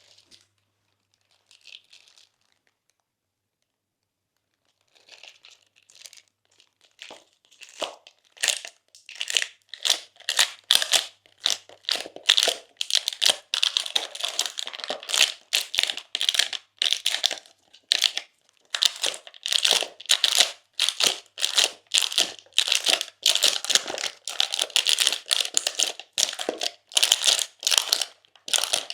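Slime being squished and kneaded by hand, crackling and crinkling in quick repeated presses about two or three times a second. It is almost silent at first, then builds from about five seconds in.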